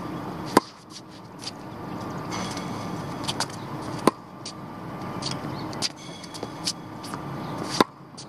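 Tennis racket striking the ball on three serves: three sharp pops about three and a half seconds apart, with a few softer knocks between them, over a steady hum of traffic.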